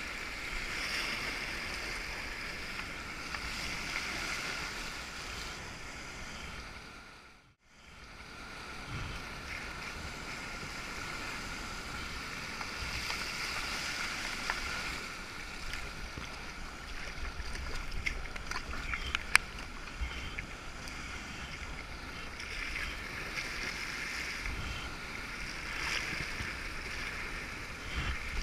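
Water rushing and splashing past a sea kayak's hull as it surfs a flood-tide standing wave. The sound drops out briefly about seven and a half seconds in, and a few sharp clicks come around nineteen seconds.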